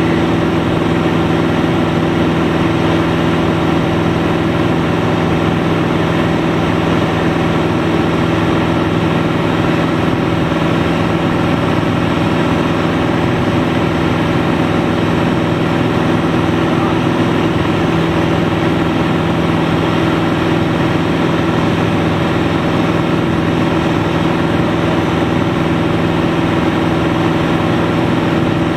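Engine and propeller of a single-engine propeller aircraft running steadily in flight, heard from inside the cockpit as an even, unchanging drone.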